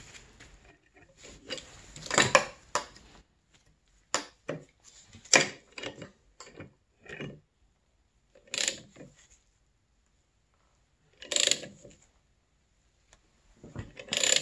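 Flywheel puller being cranked against a snowmobile engine's flywheel: a string of separate metallic clicks and clanks from the wrench on the forcing screw and the pry bar bracing the flywheel, with short pauses between strokes. The flywheel is still stuck on its taper and has not yet popped off.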